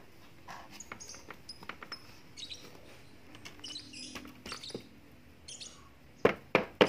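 Mealworm beetles and their bran bedding tipped from a plastic tray onto a wire-mesh sieve: faint scattered rustles, ticks and short high chirps. Near the end come about three loud, sharp knocks close together as the tray is knocked against the sieve.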